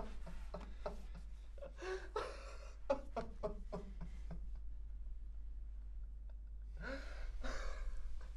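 A person gasping and breathing hard in short, strained bursts while struggling against being held back, easing off briefly and then breathing heavily again near the end.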